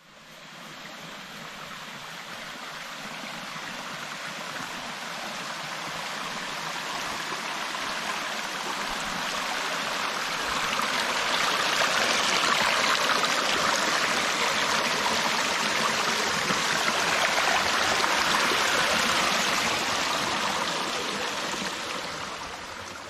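A stream of water flowing with a steady rush that swells gradually to its loudest about halfway through, then fades away near the end.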